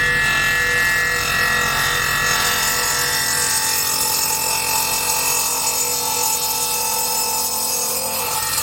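Radial arm saw's electric motor running steadily, a continuous hum and whine whose lowest part thins out about three seconds in.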